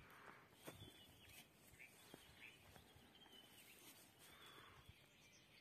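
Near silence, with faint, short bird chirps repeating every second or so and a few soft clicks.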